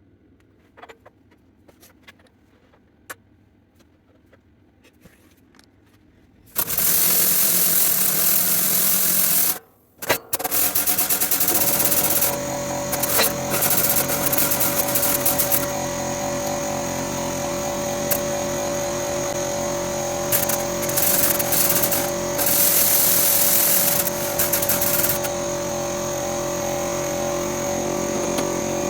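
A few faint clicks, then about six and a half seconds in a motor-driven machine starts and runs loudly with a steady whine and stretches of hiss, stopping briefly near the ten-second mark before running on.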